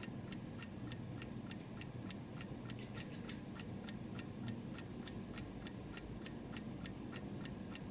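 Faint, even ticking of a clock, about four ticks a second.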